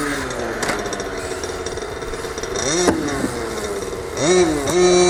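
Electric RC car's motor whining as the car is launched off a jump ramp, its pitch sliding down and then swooping up sharply twice as the throttle is blipped in the air, with a sharp click near the middle.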